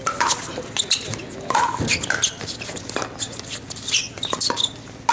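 Pickleball rally: paddles hitting the hollow plastic ball in a quick run of sharp pops, with sneakers squeaking on the hard court.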